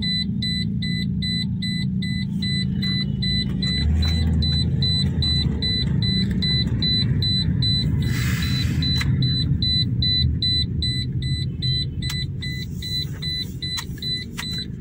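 2019 Toyota Corolla GLi on a road test, heard from inside the cabin: low engine and road rumble, with a rapid electronic warning beep repeating about four times a second. A brief hiss comes about eight seconds in.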